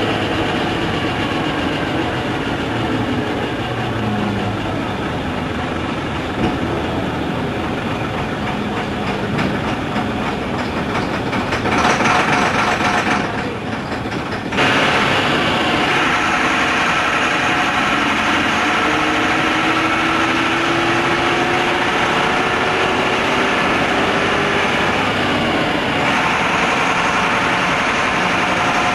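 Diesel bus engine and road noise heard from inside a moving bus, running steadily with slow rises in pitch as it pulls through the gears. About halfway through the sound briefly dulls for a second or two, then comes back.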